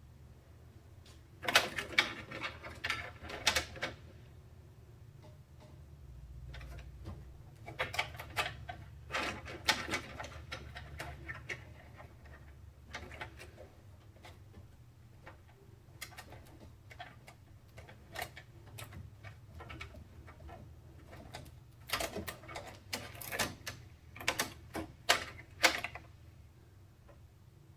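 Bursts of rapid light clicking and rattling from small hard parts being handled during a PC build, in four clusters of a few seconds each over a low steady hum.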